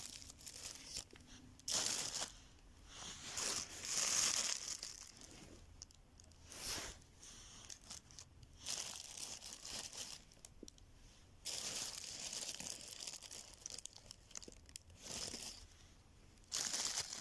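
Crinkling and rustling in irregular bursts of one to three seconds, with quieter gaps between them.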